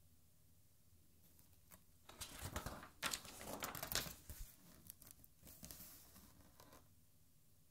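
A page of a large art album being turned by hand. The paper rustles and crackles for about three seconds, starting about two seconds in. A few smaller rustles follow as the page settles.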